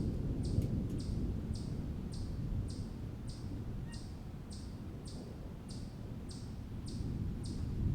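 Thunder rumbling low through a thunderstorm, easing off in the middle and building again near the end. Over it runs a steady series of short high chirps, about two a second.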